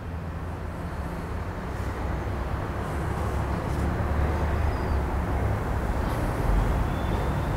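Low, steady engine rumble, even in pitch and slowly growing louder.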